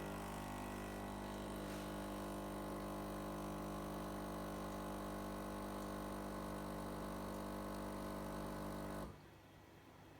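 Sage Oracle espresso machine's pump running at start-up, a steady buzzing hum that cuts off about nine seconds in.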